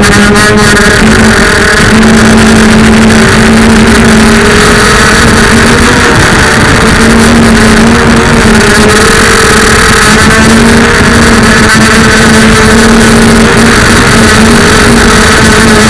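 FPV freestyle quadcopter's motors and propellers buzzing loudly at a fairly steady pitch, with small rises and dips in pitch as the throttle changes.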